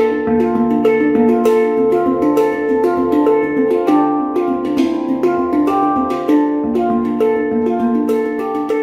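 Background music: melodic instrumental with bright plucked or struck notes over a steady beat.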